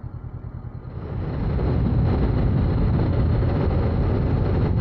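Honda CBR500R's parallel-twin engine pulling away from a standstill, getting much louder about a second in as the bike accelerates, with wind noise building over the microphone.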